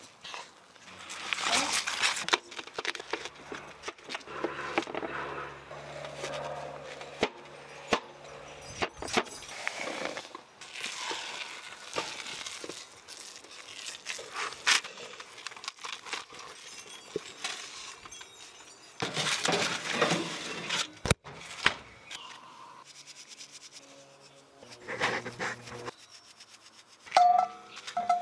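A wooden spoon stirring and scraping batter in a mixing bowl in repeated bursts, with occasional clinks and knocks of utensils against the bowl.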